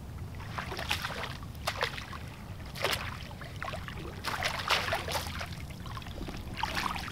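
Water splashing and sloshing in irregular bursts around a man standing waist-deep with a landing net, over a low steady rumble.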